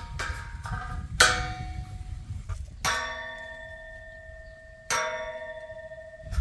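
Galvanized square steel tubes clanging together: a few light metal knocks, then two hard strikes about two seconds apart, each leaving the tube ringing with a bell-like tone that slowly fades. The last ring cuts off suddenly.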